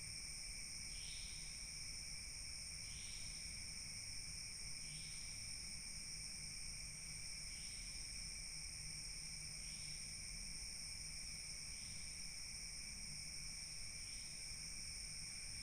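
Night insects such as crickets trilling steadily at several high pitches, with a short chirping call repeating about every two seconds, over a faint low rumble.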